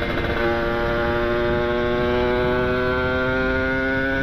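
A vehicle horn sounds one steady, unchanging tone, held for about four seconds and then cut off. Under it runs the steady noise of a motorcycle riding along.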